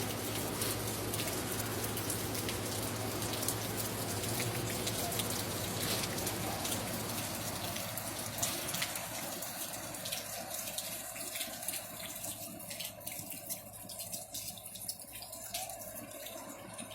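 Rain falling with a dense patter of drops, easing after about ten seconds into sparser drips over a fainter sound of running water.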